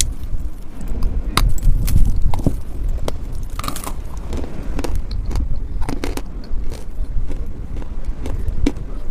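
Dry chalk being bitten and chewed: a run of irregular sharp crunches.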